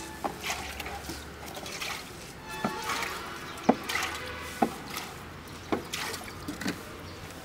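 Background music, with a few irregular sharp clicks and wet drips from a plastic tub of liquid that a puppy is nosing at.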